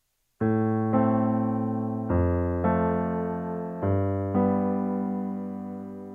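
Background music: slow keyboard chords in an electric-piano sound, six of them struck roughly in pairs after a brief silence, the last one left ringing and fading.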